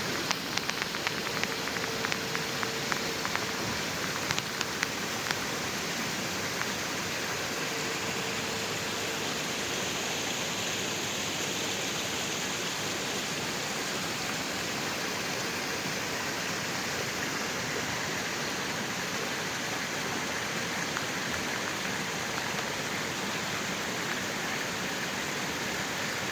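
Water flowing in snowy weather, a steady rushing splash, with a scatter of sharp ticks over the first five seconds.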